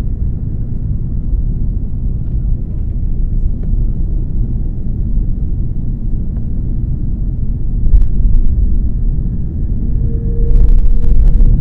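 Steady low rumble inside the cabin of an Airbus A330 taxiing after landing. A couple of faint clicks come about 8 seconds in. Near the end the sound gets louder and fuller, with a steady hum added.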